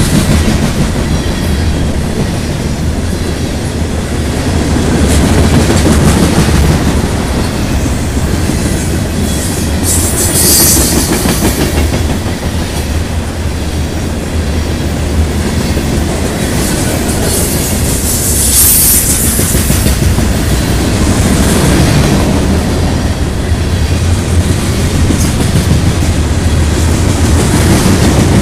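Freight train of covered hopper cars rolling past close by: a steady loud rumble of steel wheels on the rails with clickety-clack over the rail joints. Two brief high-pitched hisses come about ten and nineteen seconds in.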